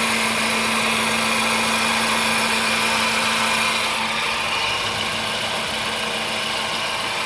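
Car engine running with a steady mechanical noise, a dense hiss and hum that eases a little about four seconds in. The owner has heard this noise since driving the car through a flooded street and does not know its cause.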